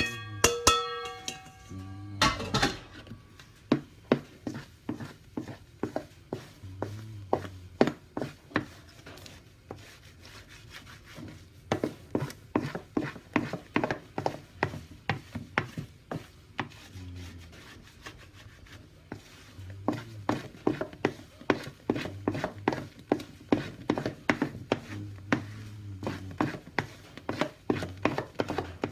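Wooden spatula scraping and knocking against a stainless steel mixing bowl in quick regular strokes, about three a second, as flour is folded into whipped egg batter. A little music plays in the first couple of seconds.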